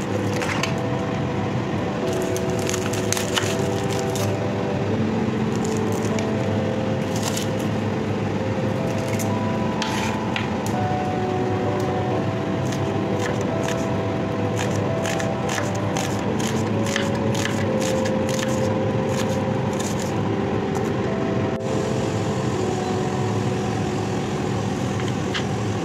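Kitchen knife cutting through a peeled onion and tomatoes on a bamboo cutting board: crisp cuts and taps of the blade on the board, coming in clusters, over soft background music with sustained notes.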